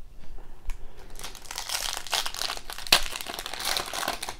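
Foil wrapper of a hockey card pack crinkling as it is torn open by hand, with one sharp crackle about three seconds in.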